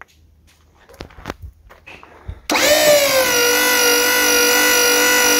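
A few light clicks as a wire is connected, then about two and a half seconds in a 12 V DC electric hydraulic pump motor starts up. It dips briefly in pitch and settles into a loud, steady whine as it drives the boom lift down, with the bypass solenoid connected so the fluid is routed through a pinhole restriction.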